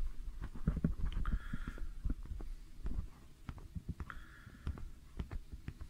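Handling noise on a handheld phone camera: irregular soft clicks and low thumps.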